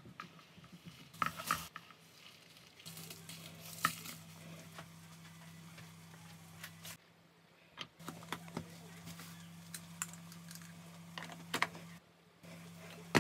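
Dry-roasted dals, rice, coriander seeds and dried red chillies being scooped by hand and dropped into a plastic food-processor bowl: faint rustling of the dry grains with scattered light clicks.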